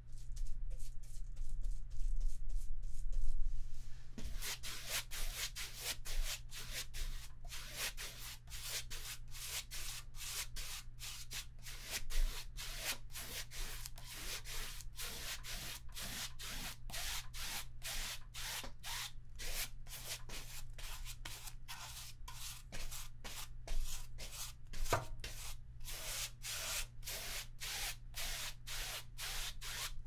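Paintbrush stroking back and forth across a stretched canvas: a scratchy, rhythmic brushing of about two to three strokes a second, starting about four seconds in.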